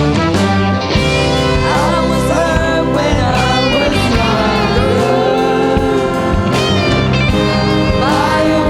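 Jazz ensemble playing live, with vocalists singing over a band of drums, bass, guitars and piano.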